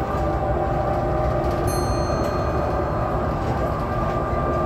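Cabin noise inside a BredaMenarinibus Avancity city bus under way: a steady engine and road drone with a whine that holds one pitch.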